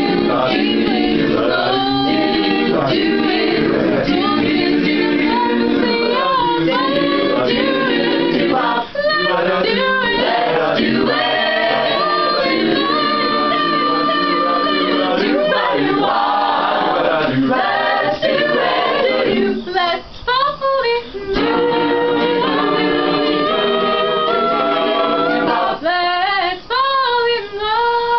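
An a cappella group singing unaccompanied: a female lead voice over a backing group of voices. The singing runs continuously, dropping out only for a couple of short breaks in the last third.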